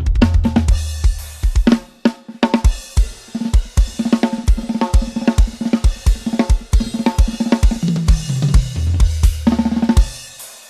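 Budget drum kit played in a drum groove with bass drum, snare, hi-hat and cymbals, opening and closing on ringing tom fills. It drops off briefly about two seconds in and again at the end.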